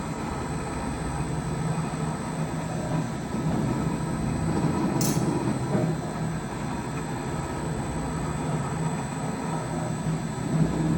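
Patterson-Kelley 75 cubic foot double-cone blender running: a steady mechanical hum and rumble from its drive, with a brief hiss about five seconds in.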